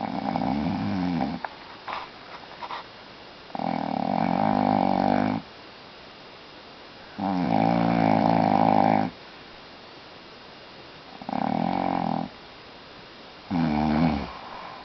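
An elderly man snoring: five loud snores, each one to two seconds long, coming about every three and a half to four seconds.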